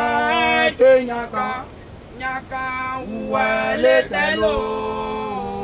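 Church congregation singing a hymn unaccompanied, men's and women's voices together on long held notes.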